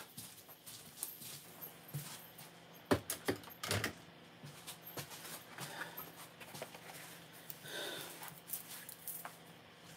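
Scattered clicks and knocks of things being handled and moved on a cluttered kitchen counter, the sharpest few coming close together a little before halfway through.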